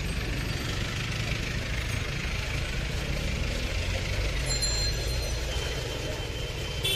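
Steady street traffic: a low engine rumble under a constant hiss, with no distinct knocks or strokes.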